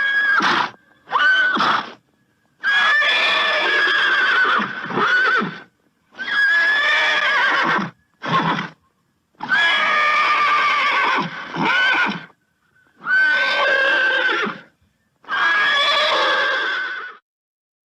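Horse neighing over and over: about eight whinnies, short ones and ones of two to three seconds, each separated by a gap of dead silence.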